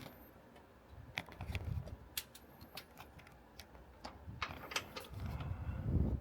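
Irregular sharp clicks and clinks of a 1/4-inch socket ratchet being fitted onto and turned on engine-bay bolts, with a few dull handling rumbles.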